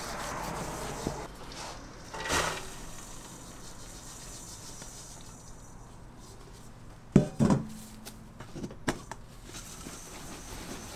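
Gloved hands rubbing damp rice flour in a stainless steel bowl and through a metal sieve, the stage of sifting the wetted flour for rice cake. About seven seconds in come a few sharp, ringing clanks of the steel bowls and sieve, the loudest sounds.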